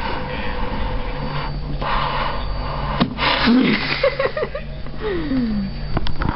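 Scratching and rustling on a cardboard box with a cat lying inside, over a steady low hum. In the middle come a few short low sounds, one of them sliding down in pitch.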